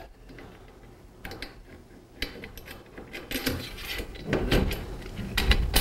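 Metal brackets of a roof sign rack being handled and turned around: scattered clicks, clinks and scrapes of metal on metal, starting about a second in.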